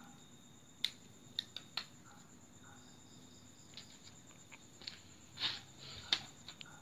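Scattered sharp snips and clicks of bonsai pruning on a serut (Streblus asper) tree, as twigs and leaves are cut away with small scissors, about nine at irregular intervals. Behind them runs a faint steady cricket trill.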